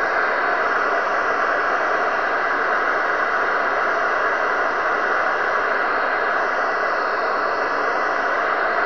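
Steady static hiss with no change in level and no separate events.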